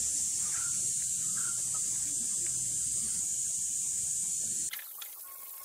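Spray paint hissing steadily as glossy black paint is sprayed onto the sewing machine's cast-iron parts. It cuts off sharply near the end, leaving a fainter hiss with a thin steady tone.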